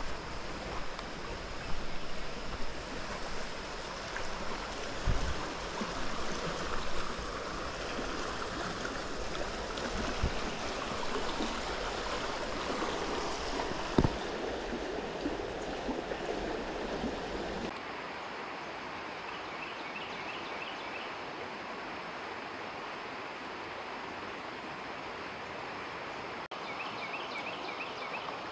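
Shallow creek water rushing over rocks, a steady flowing sound. In the first half it comes with uneven bumps and a few sharp knocks. A little past halfway it turns smoother and steadier.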